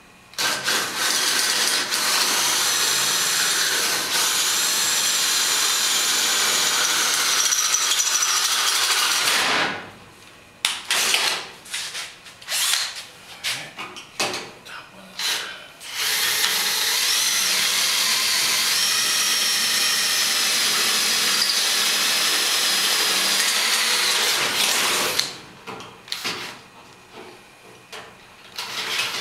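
Handheld power drill boring through sheet metal, with a high whine whose pitch wanders. It runs in two long spells of several seconds each, with short stop-start bursts of the trigger between them and again near the end.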